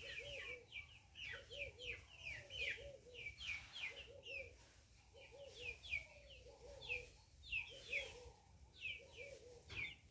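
Poultry calling throughout: many short, high, falling peeps overlaid with lower soft calls repeated in twos and threes, all faint.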